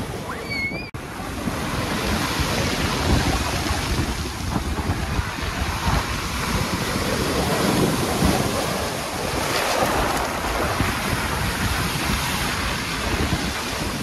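Storm surf on the sea breaking and washing up over a pebble beach, with gusting wind buffeting the microphone.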